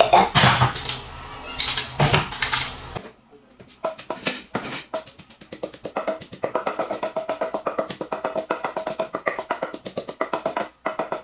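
Background music with a steady drum beat, starting about three seconds in. Before it, a few short noisy rushes over a low hum.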